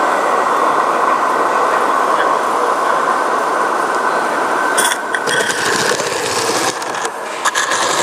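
Gauge one live steam locomotive hissing steadily as it is held on the track under steam. About five seconds in the hiss turns choppy, with clicks and short bursts as the engine starts to run.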